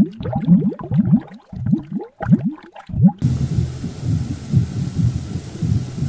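Underwater bubbling and gurgling: a quick run of low rising gurgles with short gaps between them. About three seconds in it switches abruptly to a steady hiss with low, rhythmic pulses.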